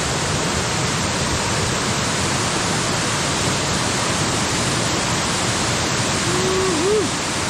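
Steady rush of a nearby waterfall, a loud even noise of falling water. A faint short rising-and-falling tone shows near the end.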